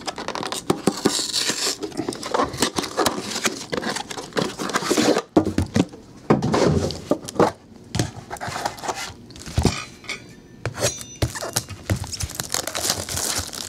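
Hands handling a 2011 Upper Deck Exquisite Football hobby box on a table: sliding the box out of its outer sleeve, setting it down and lifting off the lid. Many short knocks, scrapes and rustles of the box against the tabletop.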